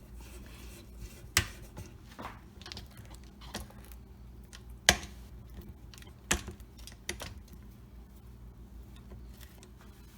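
Spatula scraping the bottom of a stand mixer's bowl, with scattered sharp taps of the spatula against the bowl, the loudest about five seconds in.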